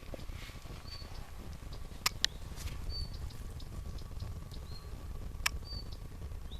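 Firewood burning in the firebox of a Koster Setka 14 sauna stove during its first firing, with three sharp crackling pops (two close together about two seconds in, one more near the end) over a steady low rumble. A small bird chirps briefly every second or so.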